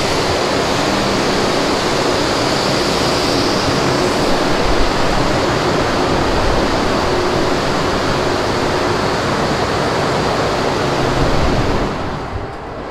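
Ship's boiler fan running at very high noise, a steady dense rushing roar with a faint low hum under it, the boiler working while cargo oil is discharged in port. The roar drops off sharply near the end.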